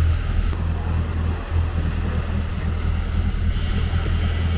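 Boat engine running steadily under way at trolling speed, a low drone, with the wake churning behind the stern and wind on the microphone.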